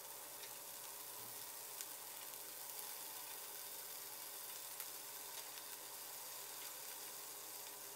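Faint, steady sizzle of sesame-oiled jellyfish skewers grilling on a ridged nonstick grill pan over medium heat, with a few tiny crackles.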